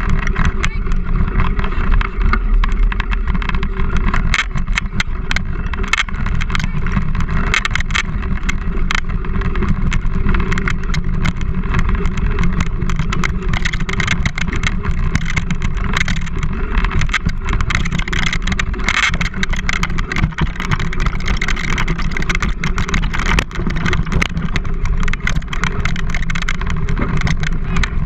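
Steady rumble and rattle of a dog-pulled wheeled rig running fast over a rough dirt trail, heard through an action camera clamped to its handlebars, with many small knocks and clicks throughout.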